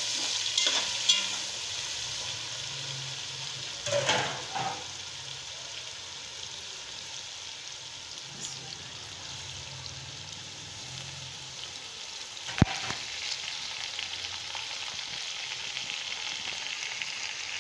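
Chicken pieces and spices sizzling steadily as they fry in hot oil in a pot, at the start of the bhuna stage, with a few knocks of the stirring spoon against the pot. The sharpest knock comes about twelve seconds in.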